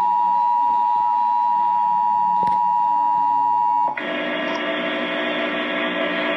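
Emergency Alert System attention signal: a steady two-tone alert sound at two close pitches near 1 kHz. It cuts off abruptly about four seconds in and gives way to a steady hiss of broadcast static.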